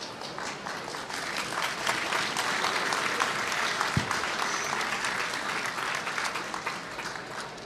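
Crowd clapping, the applause building about a second in and dying away near the end, with a single low bump about four seconds in.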